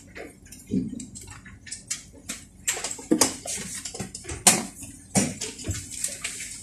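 Irregular clattering and rattling of a moving vehicle: sharp clicks and knocks at uneven intervals, with a low rumble underneath.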